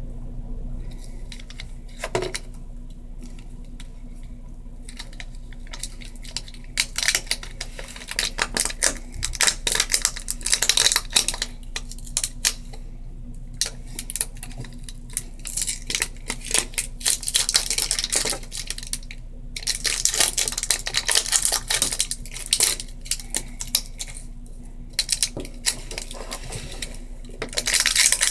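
Small hard plastic items from an acrylic nail kit being handled, clicking and clattering with some rustling. The handling comes in bursts that start about six seconds in and recur through the rest.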